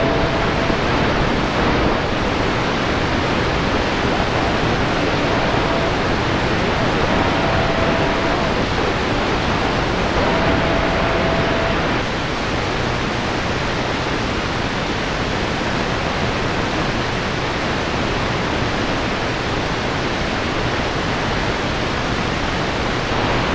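Steady hiss of static and atmospheric noise from a Grundig S350DL shortwave receiver set to wide bandwidth and tuned to a CB channel on 27.028 MHz, with no station coming through. A faint brief whistle is heard a few times in the first half.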